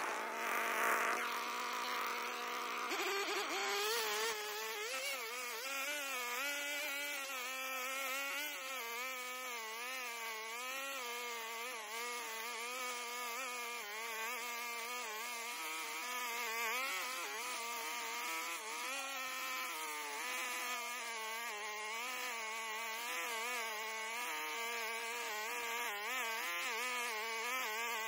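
Petrol brush cutter running. It idles steadily for about three seconds, then is throttled up, and its engine pitch wavers up and down as it cuts through grass and weeds.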